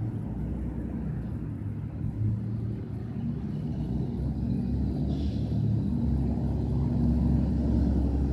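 GE B23-7 diesel locomotives' engines running with a low, steady rumble as the train approaches slowly, growing a little louder toward the end. A brief hiss about five seconds in.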